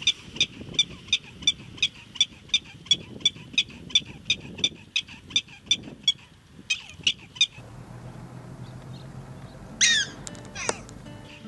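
Prairie dogs giving their repeated alarm bark: short, high, sharp calls about three a second, ending about six seconds in after a brief flurry. Near the end comes a jump-yip, a call sliding down in pitch followed by a longer falling glide.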